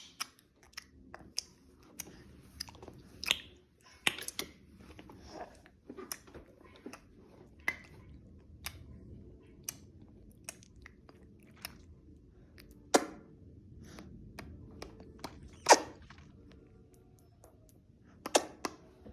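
A baby's mouth sounds: irregular wet clicks and smacks of lips and tongue, a few of them much louder than the rest.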